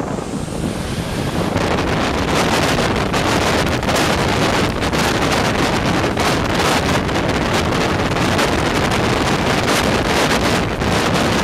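Boeing 737's twin turbofan engines at take-off thrust, their jet blast striking the microphone from behind: a loud rushing roar that builds over the first second or so, then holds steady, with gusty wind buffeting on the microphone.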